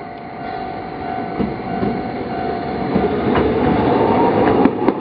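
Toden Arakawa Line 9000-series tram passing close, growing louder, its traction motors giving a rising whine and its wheels clicking sharply a few times over rail joints.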